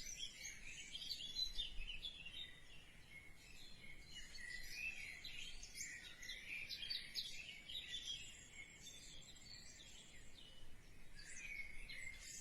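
Faint twittering of small birds: many quick, high chirps and short trills.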